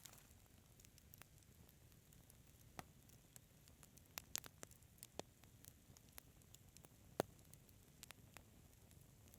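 Wood fire crackling: scattered sharp pops and snaps over a faint low hiss, the loudest pop about seven seconds in.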